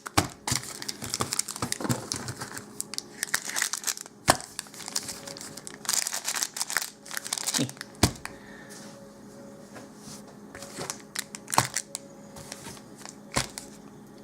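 Magic: The Gathering booster packs being handled and shuffled, their wrappers crinkling, with about five sharp taps spread through it.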